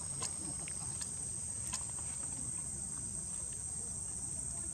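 Steady, unbroken high-pitched insect drone, with a low rumbling background and a couple of faint clicks.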